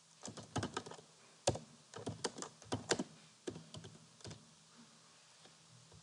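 Typing on a computer keyboard: a quick, irregular run of key clicks that stops a little over four seconds in.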